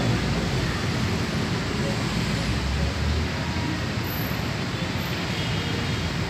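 Steady road traffic noise: a continuous rumble of passing vehicles with no distinct single event.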